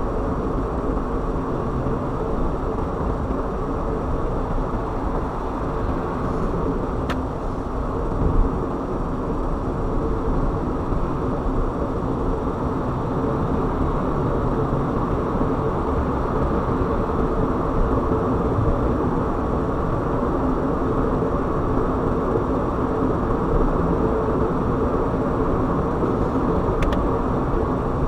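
Steady road noise of a car driving: tyre and engine noise held at an even level, with a brief louder bump about eight seconds in.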